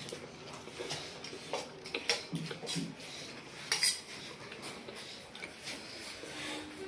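Spoons clinking and scraping on stainless-steel plates as people eat, in scattered light taps with a louder clink about four seconds in.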